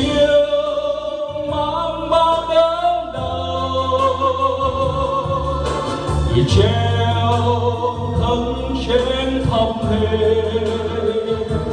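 A man singing a Vietnamese Christmas song into a microphone over a backing track with a bass line, holding long notes that slide from pitch to pitch.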